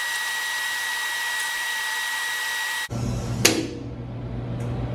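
Hum of an Instron tensile testing machine played back at 16x speed, a hiss with a steady high whine, which cuts off about three seconds in. Half a second later there is a single sharp snap as the paracord rope breaks under load, with the machine's low hum running on.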